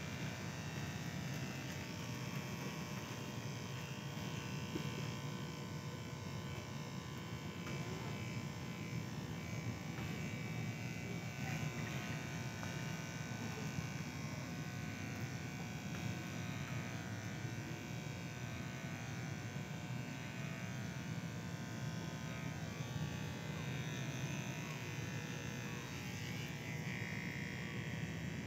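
Electric hair clippers running with a steady buzz.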